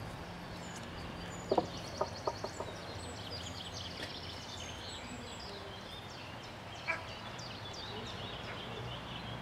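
Outdoor field ambience of songbirds chirping and trilling, with a steady low hum underneath. A quick cluster of short, sharp calls or knocks comes about one and a half seconds in, and a single one near seven seconds.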